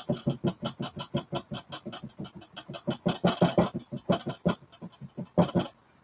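A wide flat paintbrush tapped rapidly against a canvas, about seven dull taps a second, thinning out and pausing briefly near the end.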